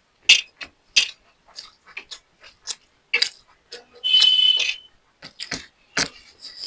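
Close-up eating sounds of a person eating fried rice: sharp mouth clicks and smacks with fainter chewing ticks between them, and a brief hissing sound a little past the middle.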